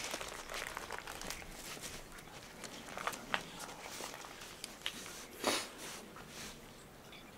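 Rustling of a white cloth tapestry being handled and folded, with scattered light taps and a louder, brief swish of the fabric about five and a half seconds in.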